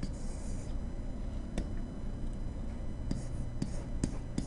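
Stylus scratching and tapping on a writing tablet as handwriting is added: a brief scratch at the start, then about five sharp clicks spread across the rest, over a faint steady hum.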